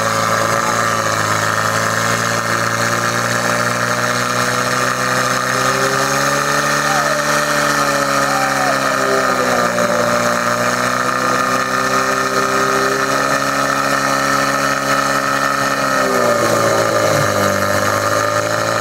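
Portable fire pump's engine running hard at high revs while pumping water to the hose lines, its pitch dipping slightly midway and falling near the end as it is throttled back.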